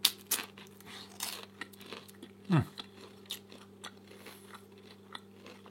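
Close-up crunchy chewing of a deep-fried vegetable egg roll, irregular crackling bites and chews. About two and a half seconds in there is a short falling "mm"-like vocal sound from the eater.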